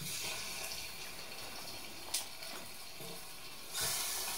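Olive oil sizzling steadily in a hot aluminum pot on an insulated solar electric cooker, with a light click about two seconds in. The sizzle grows louder near the end as chicken drumsticks are laid into the hot oil.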